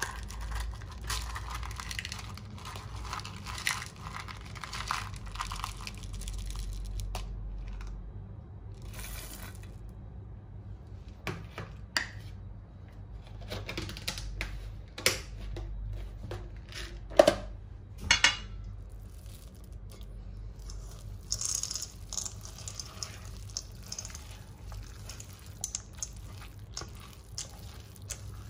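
Kitchen handling sounds from home cookie baking: rustling and crinkling, with scattered sharp clicks and knocks, the loudest a little past the middle.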